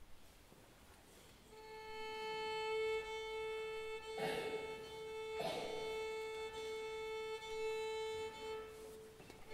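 Orchestra tuning: one instrument holds a single steady tuning A, at about 440 Hz, starting a second and a half in and sustained to the end. Two brief noisy bursts come near the middle.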